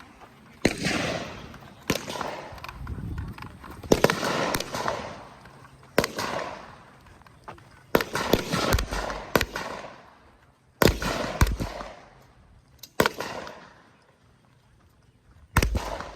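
Gunshots fired one at a time at irregular intervals, a dozen or so, each a sharp crack followed by a long rolling echo. Several are closer and heavier than the rest.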